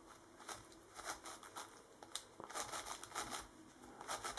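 YongJun MGC magnetic 7x7 speed cube being turned by hand: a run of faint, quick, irregular plastic clicks and clacks as its layers turn.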